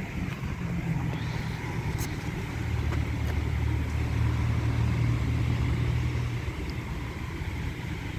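Automatic car wash running: motor-driven rotating brushes spin against a car body under water spray, with a low motor hum that swells for a few seconds in the middle and a faint steady high whine.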